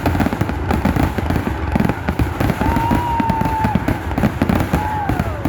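Fireworks show: a dense, rapid run of bangs and crackles. A thin whistling tone is held for about a second around the middle, and a shorter falling whistle comes near the end.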